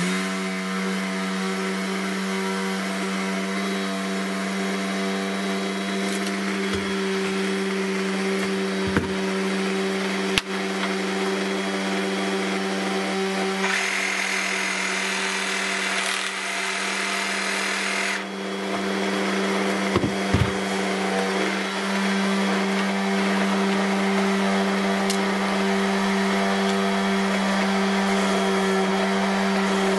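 A steady mechanical hum runs throughout. About fourteen seconds in, a cordless power tool buzzes for roughly four seconds as it cuts a length of plastic pipe into a sap spile. A few light knocks fall between.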